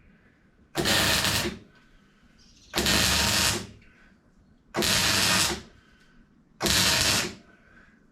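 Arc welder laying short crackling bursts of weld on a water pump, four bursts of under a second each about two seconds apart, to fill pinholes left in an earlier weld.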